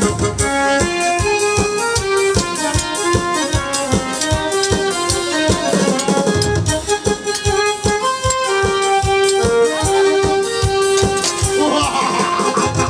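Instrumental folk music of a jatra performance: a steady drum beat under a melody of held notes.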